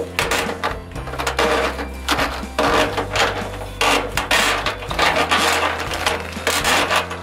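Corrugated plastic drain hose being pulled out from inside a front-loading washer, scraping and rubbing against the machine in a string of irregular bursts.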